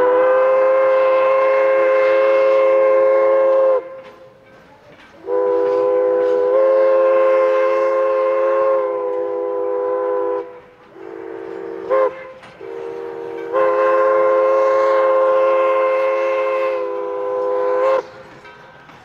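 Steam whistle of Nevada Northern No. 81, a 1917 Baldwin 2-8-0 locomotive, sounding a chord of several tones in two long blasts, one short and one more long: the standard grade-crossing signal.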